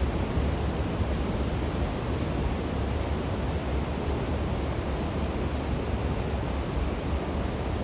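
Surf breaking steadily on a wide sandy beach, an even wash of noise with a low rumble of wind on the microphone underneath.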